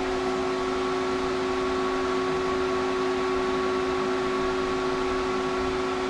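Hayward Super Pump VS variable-speed pool pump running steadily at 3200 RPM, its top speed: a constant hum with a few held tones over a steady hiss.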